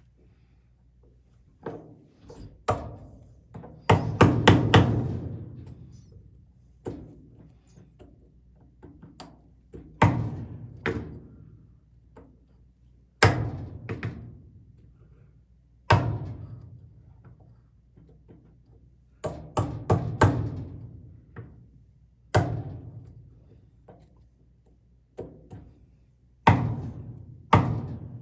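Sharp blows struck on wood, about twenty at irregular intervals with a few quick clusters, each ringing briefly.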